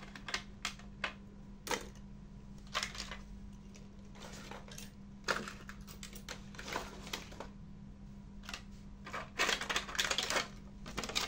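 Scattered clicks and light crackles of a clear plastic blister tray and small cardboard boxes being handled, with a quicker run of clicks near the end. A faint steady hum sits underneath.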